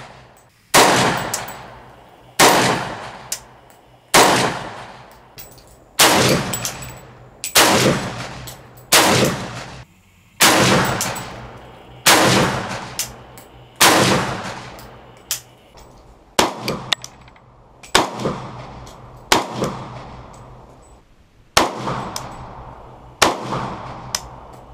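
AK-47 rifle with a JMAC Customs RRD-4 muzzle brake firing 7.62×39 mm rounds in deliberate semi-automatic shots, about one every one and a half seconds. Each sharp report trails off in echoes.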